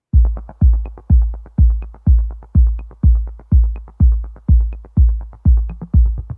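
Electronic music built on a heavy bass kick drum, about two deep thumps a second, each dying away, with a faint high tick about once a second.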